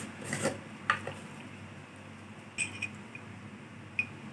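Metal kitchen utensils clinking a few times, short clicks with a brief ring, sharpest about a second in, after a short rustle at the start, over a low steady hum.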